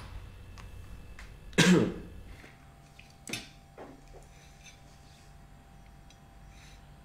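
A man coughs once, loud and short, about a second and a half in, followed by a couple of faint short knocks.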